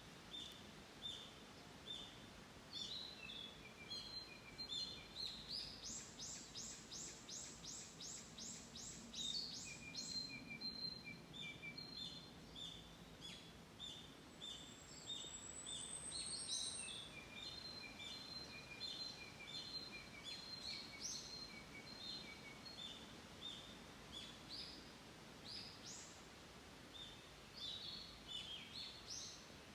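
Several small songbirds chirping and singing over a faint steady hiss. There are short high chirps repeated many times, a quick run of sharp notes about three a second for a few seconds, and a thin rising whistle near the middle.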